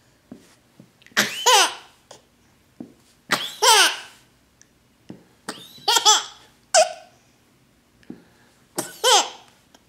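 A baby laughing in five short, loud bursts about two seconds apart, each a high squealing laugh that falls in pitch.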